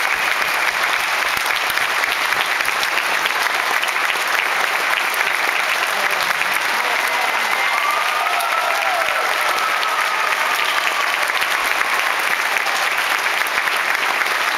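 Theatre audience applauding at a ballet curtain call: dense, steady clapping from a large crowd that keeps going without a break.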